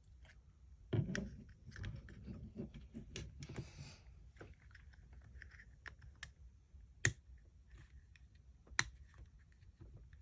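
Small plastic clicks, knocks and rattling as a replacement motor is worked into a cordless hair clipper's plastic housing: a flurry of handling knocks, then two sharp clicks a little under two seconds apart near the end.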